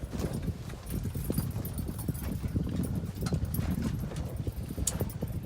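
Lake water slapping and knocking irregularly against a pontoon boat's hull, over a low, uneven rumble.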